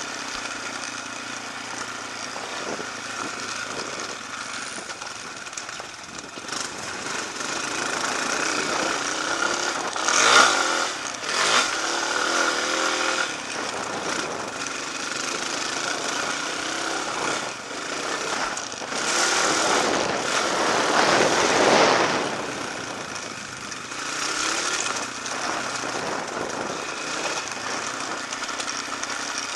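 Off-road motorcycle engine running while being ridden, rising and falling with the throttle, with louder pulls about ten seconds in and again around twenty seconds.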